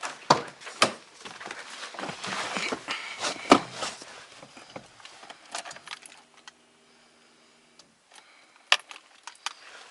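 A car key ring jangling, with several sharp clicks and knocks, then a steady low hum lasting about two seconds.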